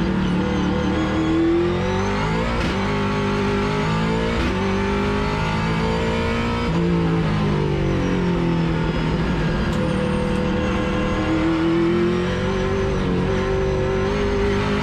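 Ford XE Falcon race car's engine heard from inside the stripped cabin while lapping at speed. The revs climb and break off at several gear changes, ease off and then climb again.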